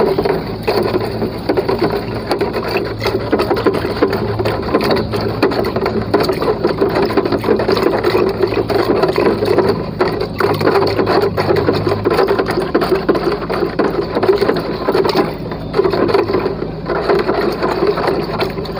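A PVC pipe churning water in a plastic jar, giving a fast, steady run of knocks and rattles with swishing: calcium nitrate being stirred into water to make a cocopeat buffering solution.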